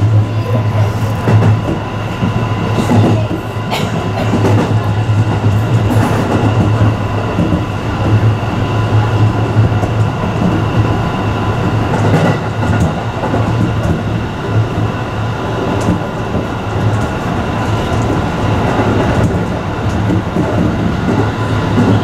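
Electric commuter train running at speed, heard from the front of the cab: a steady rumble with a few clicks of the wheels over rail joints.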